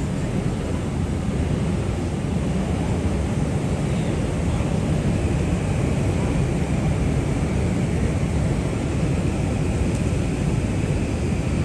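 Steady city street noise dominated by a low traffic rumble, with a faint higher hum joining about five seconds in.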